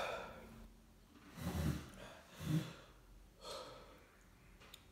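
A man breathing hard in gasps, three heavy breaths about a second apart, from the burn of extremely spicy noodles.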